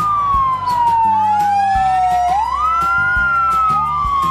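Several fire engine sirens wailing at once. The loudest rises quickly and falls slowly, starting a new rise about two and a half seconds in, while fainter sirens glide at other pitches underneath it.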